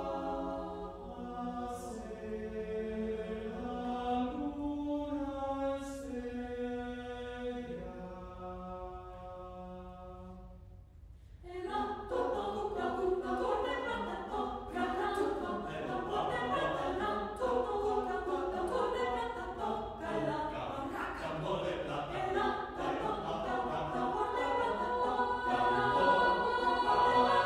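Mixed choir singing a cappella. Long held chords fade almost to a hush, and about eleven seconds in the full choir comes in suddenly louder, with a busy, dense texture of many voices.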